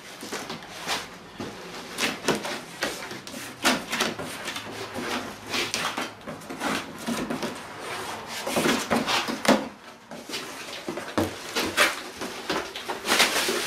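Cardboard shipping box being opened by hand. Packing tape is pulled off and the flaps rub and scrape, in irregular crackles and scuffs.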